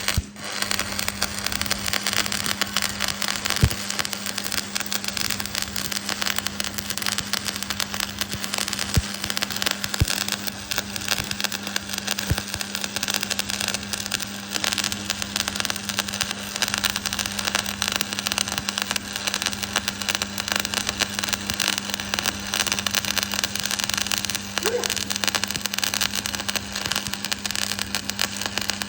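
Stick welding (SMAW) arc crackling and sizzling steadily as the electrode burns, over a steady low hum.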